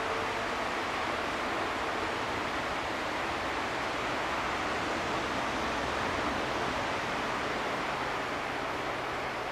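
DR class 118 (V 180) twin-engine diesel-hydraulic locomotive approaching slowly, heard as a steady rushing noise. A low engine hum comes in near the end.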